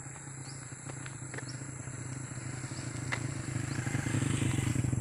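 A vehicle's engine hums steadily and grows gradually louder, loudest near the end, as it approaches along the road.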